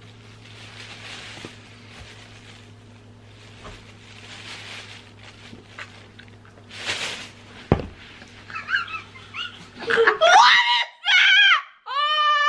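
High-pitched shrieking laughter breaks out about eight seconds in and is the loudest sound, after several seconds of faint breathy hiss and a single sharp knock.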